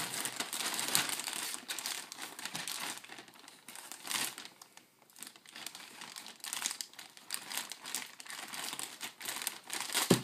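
A white mailing bag crinkling as it is handled and cut open with scissors, in irregular crackles with a short lull about halfway through.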